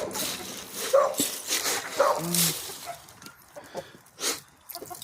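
Three short animal calls about a second apart, one ending in a brief low steady tone, then quieter scattered clicks.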